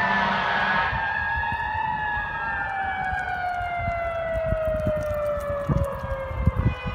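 The mechanical Q siren on a fire department heavy rescue truck is winding down, its pitch falling slowly and steadily. A second siren tone rises and falls behind it. Uneven low rumbling bumps come in near the end.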